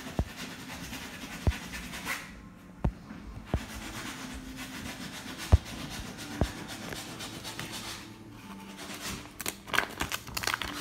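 Handling noise of a hand-held phone over paper pages: a string of sharp clicks and knocks, about seven in the first six and a half seconds, then a burst of rubbing and rustling near the end as a finger brushes the phone. A faint low hum runs underneath.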